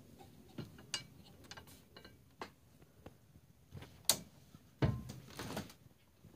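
Scattered clicks and knocks as an RV door is handled and someone climbs inside, ending with a heavy thump about five seconds in, followed by a brief rustle.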